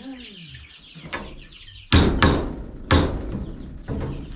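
Hammer driving a nail into a chicken perch: two quick blows about two seconds in, another a second later, and a lighter one near the end.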